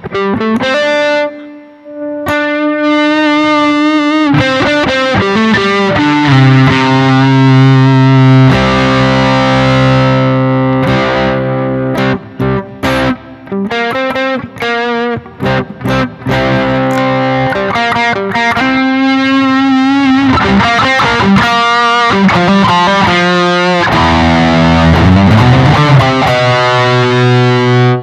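Electric guitar played through a Zoom G1Xon multi-effects pedal on its Dynamic Drive overdrive effect, strumming sustained overdriven chords and riffs. Through the middle the chords are short and choppy, with brief gaps, and near the end a note slides up in pitch.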